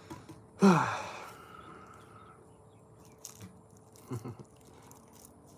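A man's voice: a loud wordless exclamation about half a second in, falling steeply in pitch over about half a second. A short, quieter low vocal sound follows near four seconds in.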